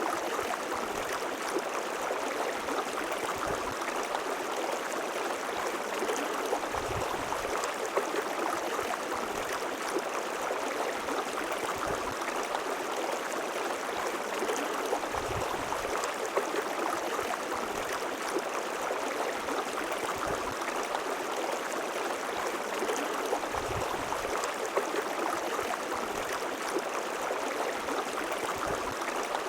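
River water rushing and flowing steadily, with a few brief low gurgles or bumps scattered through it.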